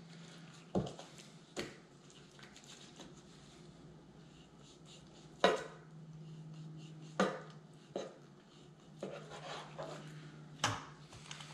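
Chef's knife trimming fat from raw chicken thighs, its blade knocking on a plastic cutting board: about six sharp knocks at irregular intervals, the loudest about five and a half seconds in. A faint steady hum runs underneath.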